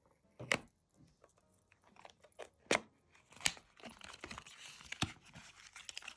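Small white cardboard box of a phone charger's power adapter being opened by hand: four sharp snaps of card and flaps, with paper and plastic crinkling and rustling between them, busiest in the second half.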